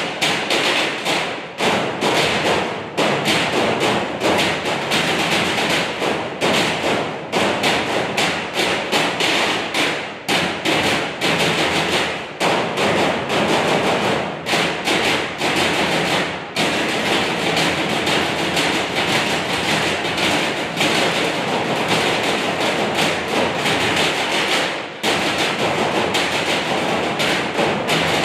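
Trash-can percussion ensemble beating galvanized metal trash cans with drumsticks: a loud, fast, continuous rhythm of stick strikes on metal.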